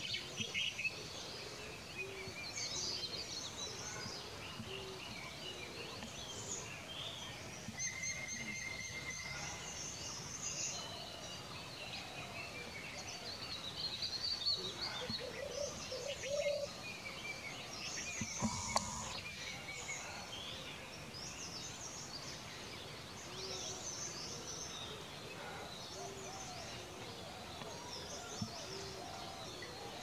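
Forest bird chorus: many small birds chirping and calling, with a steady whistled note lasting over a second about eight seconds in and a brief bump of noise a little past halfway.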